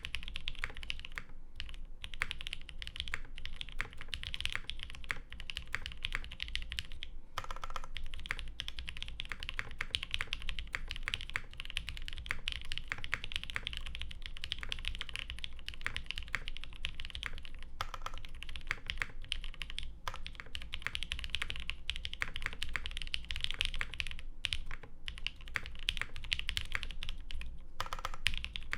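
Mode SixtyFive mechanical keyboard typed on quickly and without letup. Its keystrokes come from lubed 62 g Creamsicle linear switches in a carbon fiber half-plate, isolated top mount, with GMK keycaps and no sound dampening. A deeper single keystroke, likely a large stabilized key, stands out three times.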